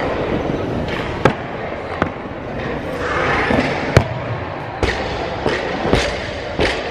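Barbell with Eleiko bumper plates in a clean and jerk: sharp knocks through the lift, the loudest about four seconds in at the jerk. Near the end it is dropped from overhead, and the plates bounce on the rubber platform several times, the knocks coming closer together.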